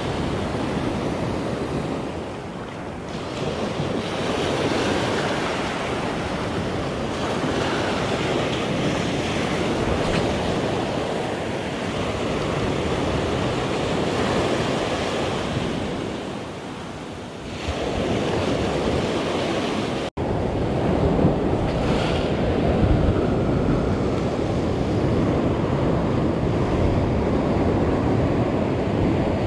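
Sea waves washing onto the shore, with wind buffeting the microphone. The sound breaks off for an instant about twenty seconds in.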